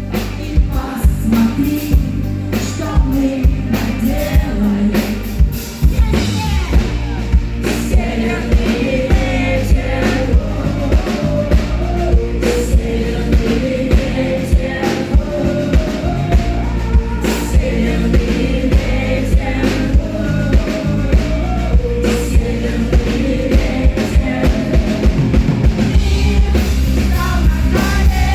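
Live rock band playing a song with a singer over a drum kit, the drum hits falling steadily through it.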